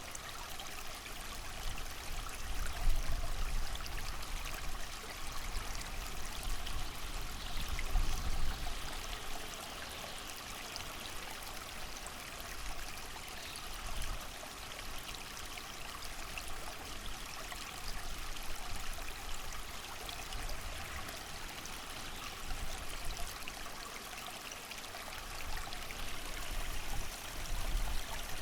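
A creek flowing steadily as an even rushing hiss, with low gusts of wind swelling in a few times: about three seconds in, around eight seconds, and again near the end.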